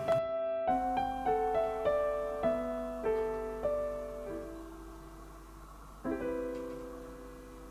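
Background piano music: slow single notes and chords, each ringing out and fading. There is a brief break just after the start, and a fresh chord about six seconds in.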